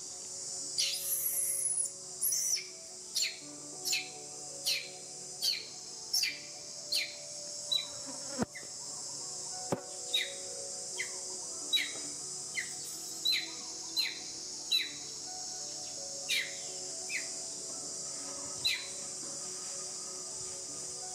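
Steady high insect drone, as of crickets or cicadas, with a run of short, high, falling chirps repeating about every three-quarters of a second. Two sharp clicks come about halfway through.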